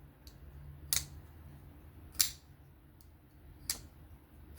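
Three sharp, separate clicks: a folding pocket knife's blade being flicked open and snapped shut.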